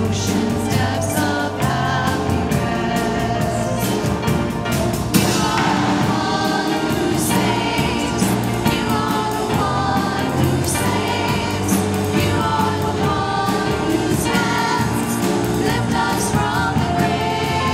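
Christian worship music: a choir singing with accompaniment. About five seconds in there is an abrupt change as the next song begins.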